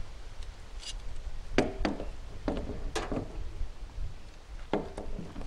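Irregular sharp clicks and knocks of a hand tool being set on and worked against the plastic threaded outlet fitting of a poly water tank as it is tightened, about five in all, spread through the few seconds.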